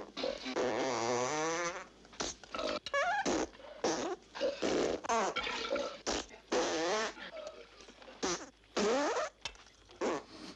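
A chorus of farts from several men, about a dozen one after another. The first is a long one wavering in pitch; the rest are shorter and varied.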